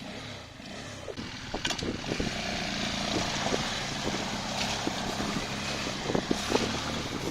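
Motorcycle engine running off-road, getting louder about two seconds in, with scattered knocks and rattles over it.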